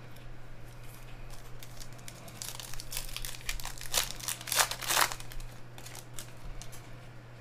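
Foil wrapper of a trading-card pack being torn open and crinkled by hand. The crackling builds about a third of the way in and is loudest for a couple of seconds around the middle.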